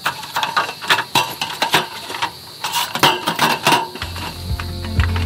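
A folding camp table's roll-up slatted top and metal frame clattering as the slats are unrolled and laid onto the frame: a quick run of light clicks and clinks. Guitar music starts about four seconds in.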